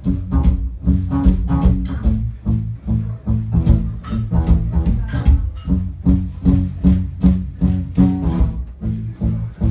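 Guitar strummed live in a steady rhythm: the instrumental opening of a song.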